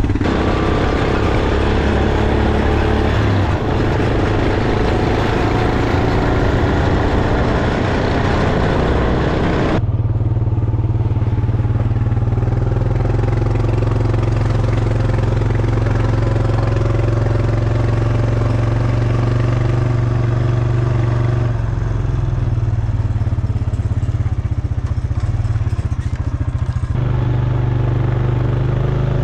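Honda ATV engine running steadily while it is ridden. A loud rushing noise lies over it for the first ten seconds or so, then cuts off abruptly.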